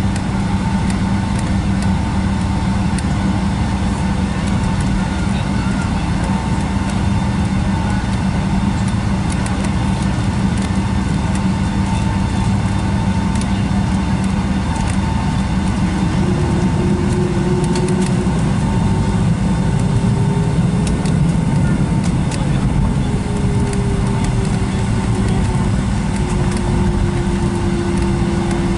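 Steady cabin noise inside a Boeing 757-200 taxiing on the ground, its Rolls-Royce RB211 engines near idle: an even rush with a steady hum and a higher whine. From about halfway a fainter tone joins in, drifting slightly in pitch.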